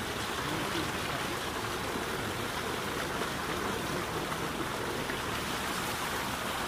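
Water from a tubewell's outlet pipe gushing into a concrete tank: a steady rushing, splashing noise.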